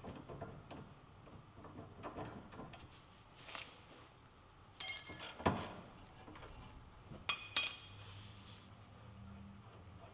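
Metal clanking and clinking from hand tools and front suspension parts being handled, with quiet rustling between. One sharp ringing clank about five seconds in is the loudest, followed by a dull thump, then two more ringing clinks a couple of seconds later.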